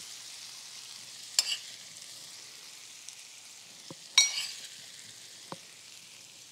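Sautéed onion and red bell pepper sizzling in a hot pan, a steady hiss that slowly fades. A metal spoon clinks against the pan twice, about a second and a half in and again about four seconds in, with a few lighter ticks.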